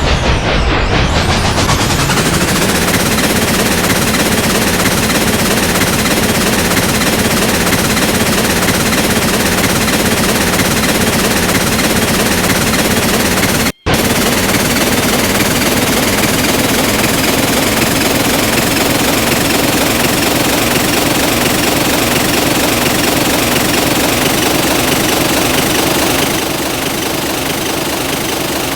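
Train running, a loud, steady rapid clattering rattle. It cuts out for an instant about 14 seconds in and drops a little in level near the end.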